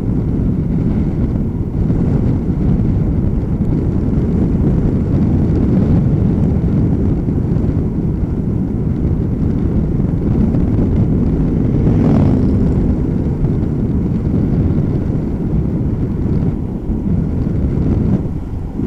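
Wind buffeting the microphone of a camera on a moving bicycle: a loud, steady low rumble, with a brief higher-pitched rush about twelve seconds in.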